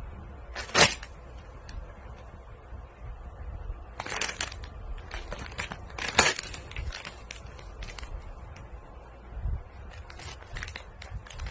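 Crinkly plastic chip bags (a Cheetos bag among them) crackling and rustling in sharp bursts as they are tugged and squeezed, the loudest crackle about a second in, more around four and six seconds in, and small crinkles near the end.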